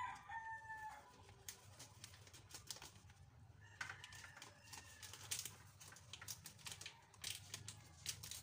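A rooster crowing faintly, near the start and again about four seconds in, over the light crinkle and rustle of a plastic breading-mix packet being handled and poured into a cup.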